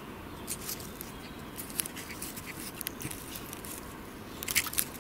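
Wooden sliver scraping and scooping sticky tree resin off the bare wood of a trunk: soft, irregular scratches and small clicks, with a quick flurry near the end.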